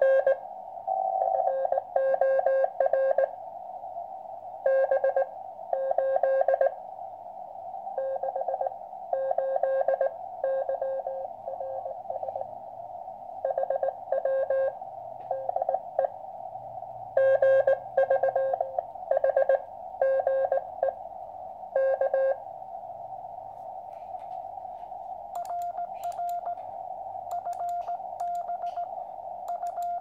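QCX transceiver receiving a Morse code (CW) signal: a keyed tone beeping out dots and dashes over a steady band of receiver hiss. About 25 seconds in, the operator's reply takes over: a slightly higher sidetone keyed by hand, with the sharp clicks of the Morse key.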